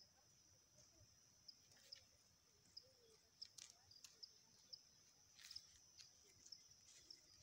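Near silence, with crickets keeping up a faint, steady, high-pitched trill and a few faint clicks.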